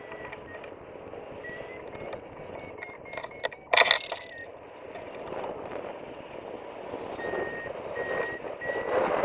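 Wind rushing over the microphone of a hang glider in flight, swelling near the end, with a variometer's short high beeps twice, the vario signalling lift in a thermal. A single brief loud knock a little under four seconds in.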